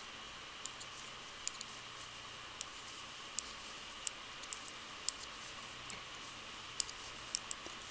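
Metal-tipped circular knitting needles clicking lightly against each other as stitches are purled, in irregular single clicks roughly two a second.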